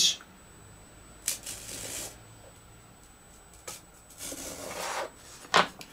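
Fine-toothed razor saw (a draw saw) cutting a balsa longeron to length: two short sawing strokes about three seconds apart, with a few light knocks of the wood and tool.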